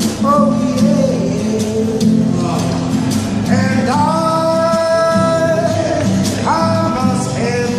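A man singing to his own acoustic guitar playing. His voice slides up into one long held note about four seconds in and starts a new phrase near the end, with the guitar going on underneath.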